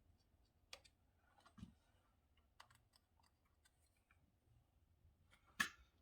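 Near silence broken by scattered faint clicks and taps of small things being handled, with one louder knock about five and a half seconds in.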